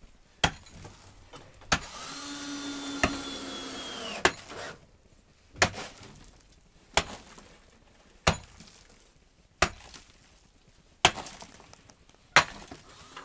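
A long-handled pick digging into hard earth, striking about once every second and a quarter, ten blows in all. For about two seconds near the start, a steady hiss with a low hum and a whine runs under the strikes.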